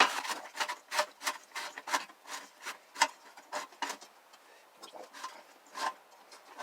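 Recoil starter pulley of a 5 hp Briggs and Stratton being turned counterclockwise by hand inside its housing to pre-wind the spring: irregular clicks, several a second, with rubbing between them. The sharpest click comes right at the start.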